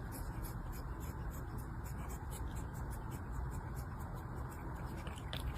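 Light, rapid scratching or rubbing sounds, several a second, over a steady low hum.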